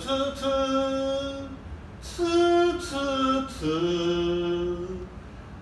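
A man singing a short theme song unaccompanied, in long held notes that step up and down in pitch.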